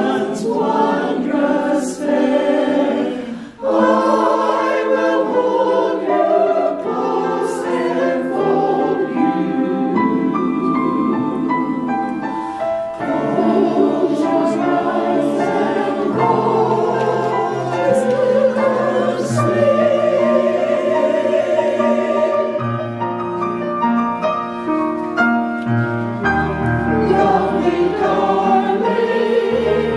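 Mixed church choir of men and women singing a slow Christmas anthem together, with a brief breath pause a few seconds in.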